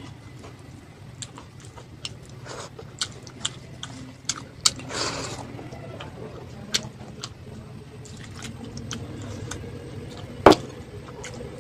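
Close-miked eating sounds: chewing with scattered wet mouth clicks and smacks, a short noisy crunch or slurp about five seconds in, and one sharp, louder click near the end.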